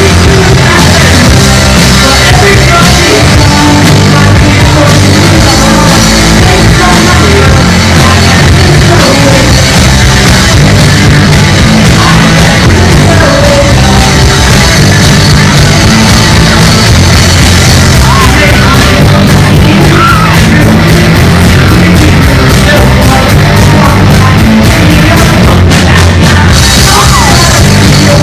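Live rock band playing loud: electric guitars, bass guitar and drums, with a singer at the microphone.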